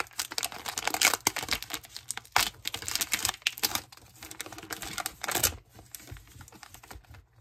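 Foil wrapper of a Pokémon booster pack crinkling and tearing as it is pulled open by hand: a rapid run of crackles that thins out after about five and a half seconds.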